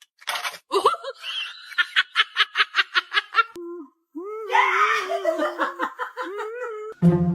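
A person laughing hard: a quick run of ha-ha bursts, about four a second, then a long, wavering, high-pitched laugh.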